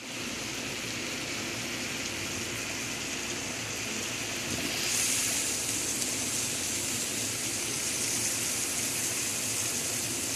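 Diced chicken breast sautéing with onion, tomato and peppers in a frying pan, a steady sizzle that gets louder and brighter about five seconds in.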